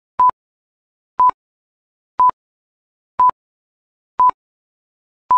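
Quiz countdown timer sound effect: short electronic beeps of one steady pitch, one each second, six in all, with dead silence between them.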